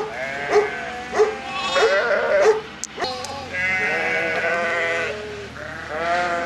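Sheep bleating, several overlapping calls, with one long drawn-out bleat partway through and a couple of sharp clicks about three seconds in.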